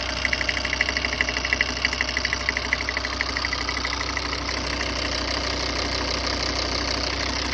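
Volvo XC60 2.4 engine idling with a fast, light ticking, about nine ticks a second, that stops about halfway through while the idle carries on. The tick is one that goes away when a small tube in the engine bay is pinched off.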